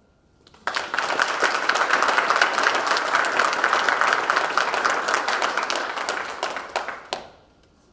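Audience applauding, starting about half a second in and dying away to a few last separate claps near the end.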